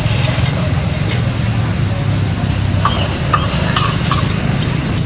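Steady low rumble of road traffic, with a few short sharp clicks about three seconds in.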